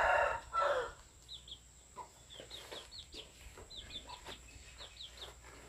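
Chickens clucking, loudest in the first second, with short high chirps repeating in quick twos and threes.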